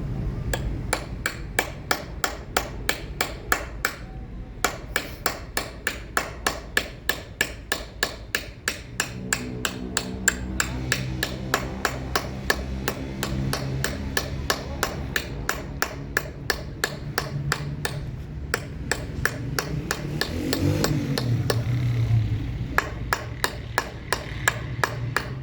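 Hand hammer tapping a chisel to engrave stone, in quick, even strikes about three a second with a couple of short pauses. A low drone runs underneath through the middle.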